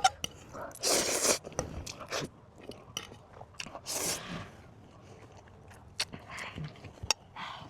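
A person biting into and chewing crunchy food. There are loud crunches about a second in and again about four seconds in, with scattered short clicks between them.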